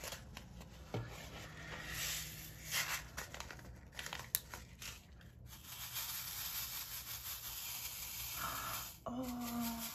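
A small plastic bag crinkling and rustling as blue diamond-painting drills are poured from it into a plastic sorting tray, with scattered small clicks from the drills.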